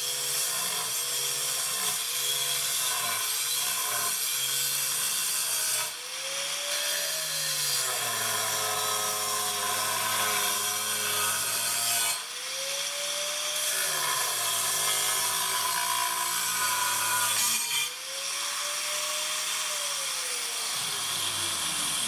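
Angle grinder with a 4.5-inch dry-cutting diamond blade cutting porcelain tile, the blade hissing continuously as the motor pitch rises and falls under load. The cut eases off briefly three times, and the motor pitch falls away near the end.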